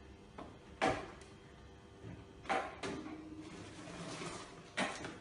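A door being handled: a few separate clunks and knocks, the loudest about a second in, with a short faint hiss between them.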